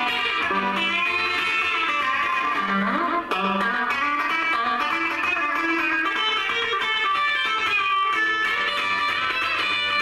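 Fender Jaguar electric guitar played through an amplifier: busy rockabilly lead lines and chords, picked without a break.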